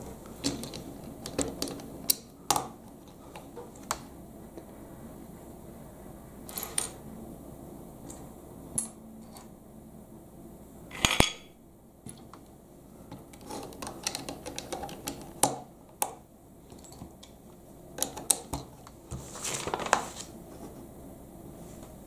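LEGO bricks clicking and rattling as pieces are handled and pressed together, in irregular small clicks with a few louder clatters.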